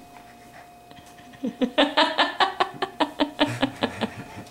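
Laughter: a run of short ha-ha pulses, about four a second, starting about a second and a half in, after a quiet stretch with a faint steady hum.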